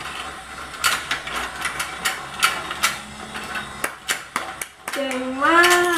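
Irregular plastic clicks and knocks from a battery-powered toy fishing game as its pond turns and a plastic fish is hooked and lifted out with a toy rod, over a faint motor hum. A short voice sound rises near the end.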